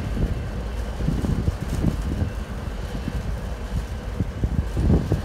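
Wind buffeting the microphone in uneven gusts over the low rumble of a freight train's cars rolling away on the rails.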